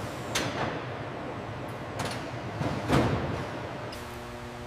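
Metal clunks from a heavy gearbox housing swinging on crane slings as it is set against its mount points: three knocks over steady workshop background noise, the loudest about three seconds in. Near the end a steady low machine hum sets in.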